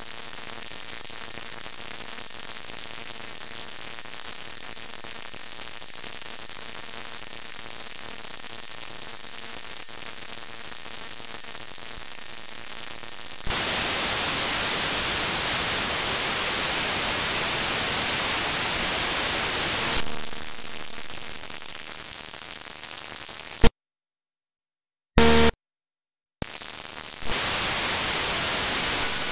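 Radio static hiss from an SDR receiver in wideband FM mode, with no station audio coming through. The hiss steps louder and brighter about halfway and then drops back. Near the end it cuts out completely twice, with a brief tone between the gaps, before the hiss returns.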